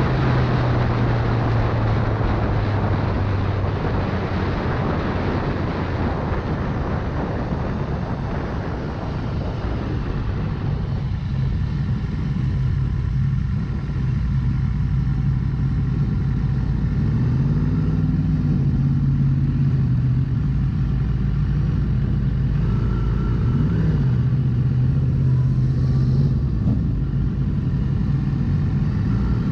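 Motorcycle engine running under heavy wind rush at highway speed; about ten seconds in the wind fades as the bike slows, leaving the engine's low hum, which rises and falls in pitch a couple of times at low speed.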